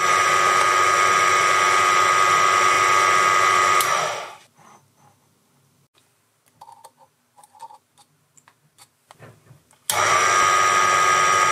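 Proxxon PD 250/e mini lathe running with a steady whine while a drill works into the end of a 316 stainless steel bar. It runs down and stops about four seconds in, leaving near silence with a few faint clicks, then starts up again suddenly near the end.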